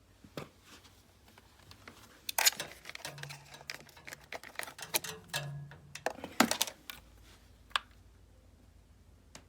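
Hands handling a cordless stick vacuum's plastic parts: scattered clicks, taps and rustling, busiest in the middle, with the loudest clicks about two and a half and six and a half seconds in.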